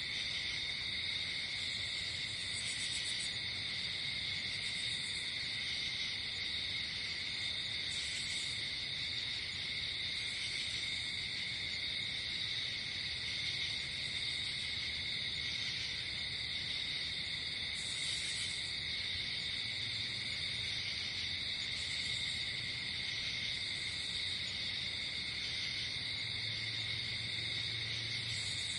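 Steady, shrill chorus of night insects in the woods, with a higher buzzing trill breaking in briefly every few seconds.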